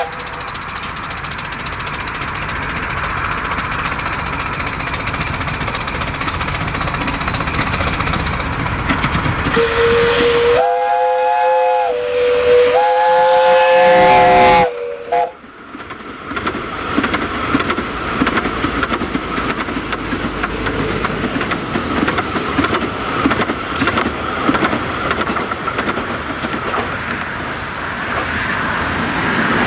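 Passing 15-inch-gauge steam train, with a steady running noise throughout. About ten seconds in, the locomotive's whistle sounds two long blasts. The sound breaks off sharply after the second blast, then the train's running noise carries on.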